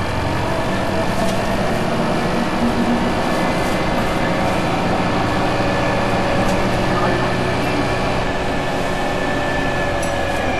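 Transbus Trident III double-decker bus under way, heard from inside near the rear axle: the Cummins ISMe diesel and Voith DIWA automatic gearbox running steadily, with a rumble under a droning whine that drifts slightly lower in pitch.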